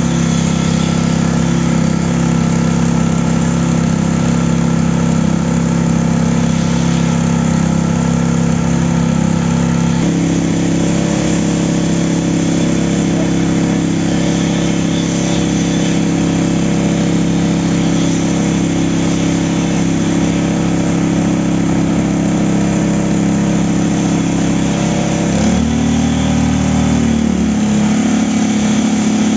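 Small engine driving a concrete needle vibrator, running steadily while the poker consolidates freshly poured raft concrete; its note shifts about ten seconds in and again a few seconds before the end.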